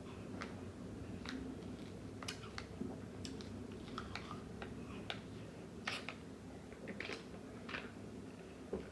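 Close-up eating sounds of ice cream: scattered small wet clicks and smacks of the mouth and spoon, over a steady low hum.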